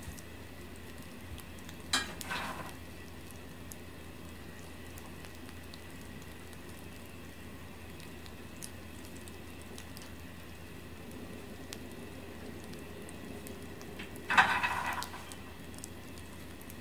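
Freshly roasted peanuts cooling on newspaper, giving off scattered faint ticks as they cool. There are two louder short crackles, about two seconds in and about fourteen seconds in, over a steady low hum.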